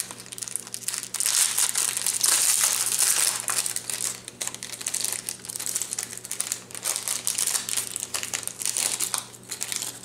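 Packaging crinkling and rustling as it is handled, with many small crackles throughout, over a faint steady low hum.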